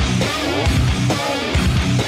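Really loud heavy-rock music: strummed electric guitar over a steady pounding beat about twice a second.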